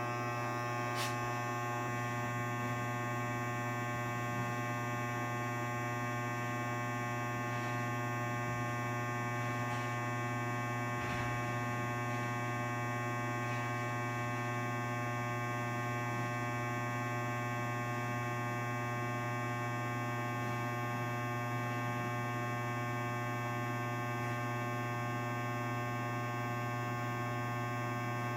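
Steady electrical hum, with a strong low drone and fainter steady tones above it, unchanging throughout; a faint click or two breaks it once or twice.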